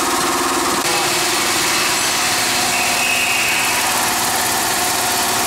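Sugar coating machine running with a steady hiss from its air-atomizing spray gun misting liquid into the stainless-steel coating pan. A humming tone under the hiss drops out about a second in.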